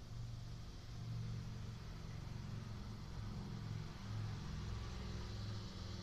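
A low, wavering engine-like hum.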